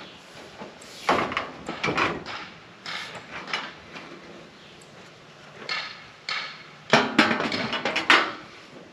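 Ribbed metal siding panel clattering and flexing as it is pushed against the wall framing and tucked into Z trim at the bottom, in a series of irregular knocks, the loudest run near the end.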